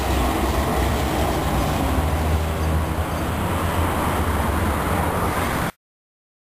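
Vintage tram passing close by and pulling away along the street track: a steady rumble of wheels on the rails over a low motor hum. The sound cuts off suddenly near the end.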